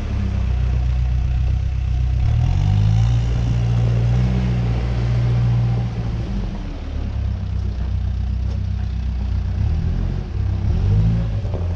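New Holland B100B backhoe loader's diesel engine running, its pitch rising about two seconds in, easing back around six seconds, and rising again near the end.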